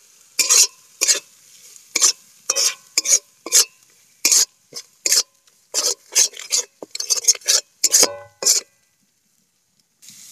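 Wooden spatula scraping around an aluminium karai, stirring spice paste frying in oil: short, sharp scraping strokes about two a second over a faint sizzle. The paste is being fried down until the oil separates. The strokes stop shortly before the end.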